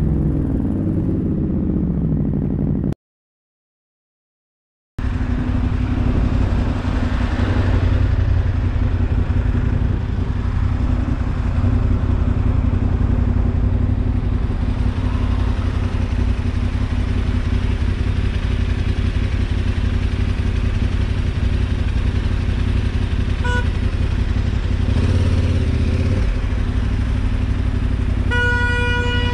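Motorcycle engine running with road and wind noise as heard from the bike's onboard camera, broken by about two seconds of dead silence a few seconds in. A horn gives a short toot about 23 seconds in and a longer blast near the end.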